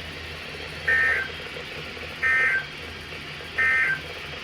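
Three short bursts of Emergency Alert System SAME data tones, about a second and a half apart: the end-of-message code that closes an alert broadcast. A steady low hum sits underneath.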